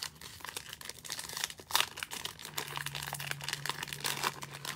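Plastic wrapper of a Panini Absolute football cello pack crinkling and tearing as it is pulled open by hand, in a run of sharp, irregular crackles, the loudest about two seconds in.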